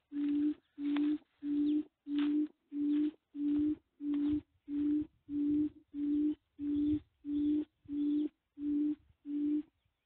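Bird-call lure played from a small speaker set at a bird trap: a deep hooting note repeated evenly, about one and a half times a second, each note at one steady pitch. It stops abruptly near the end.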